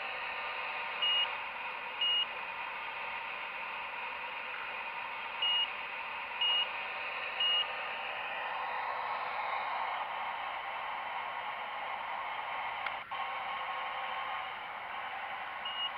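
Radio-controlled hydraulic excavator working, its pump giving a steady whirring hiss that deepens for a few seconds as the arm moves. Short high beeps come about one a second, twice near the start and three times a few seconds later, and a single sharp click sounds near the end.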